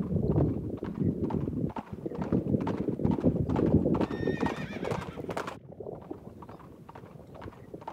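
Horse hooves clip-clopping, with a wavering whinny about four seconds in; the hoofbeats grow fainter after the whinny.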